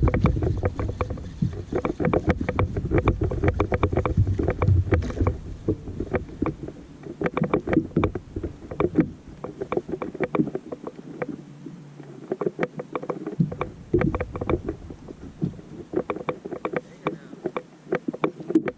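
Small waves lapping and slapping against a boat's hull in a dense run of irregular small splashes, with wind rumbling on the microphone for the first few seconds.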